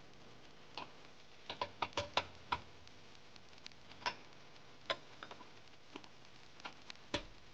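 Stainless steel stand-mixer bowl and dough hook clinking and clicking as they are handled and fitted onto the mixer. The metal knocks come irregularly, some ringing briefly, with a cluster about two seconds in and a last sharp one near the end.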